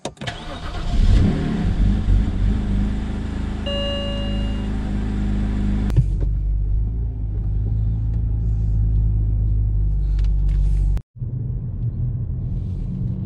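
Steady low drone of a rebuilt BMW N52 straight-six and its tyres, heard from inside the cabin while driving. A short single tone sounds for about a second about four seconds in, and the sound cuts out for a moment just after eleven seconds.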